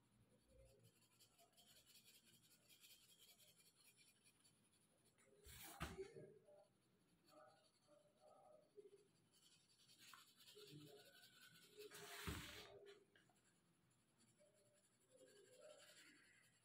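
Very faint scratching of an orange coloured pencil shading on paper. Two louder rustles stand out, one about six seconds in and a longer one around twelve seconds in, as the sheet is shifted and turned on the table.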